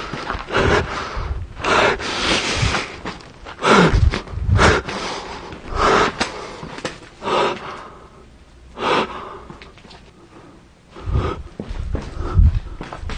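Heavy, gasping breaths at irregular intervals, mixed with footsteps and camera-handling noise, thinning out in the second half.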